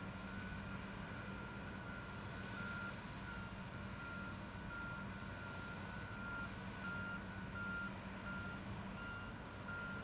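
Backup alarm on heavy construction equipment beeping steadily, about three beeps every two seconds, over the steady drone of diesel engines running.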